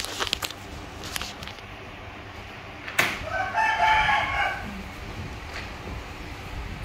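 A single drawn-out animal call, just over a second long, about three seconds in, just after a sharp click.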